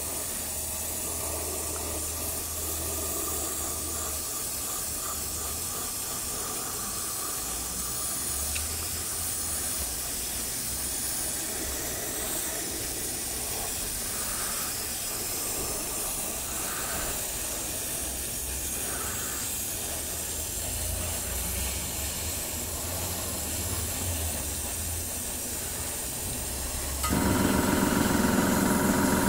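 Airbrush spraying paint: a steady hiss of compressed air. Near the end a louder steady machine hum starts up.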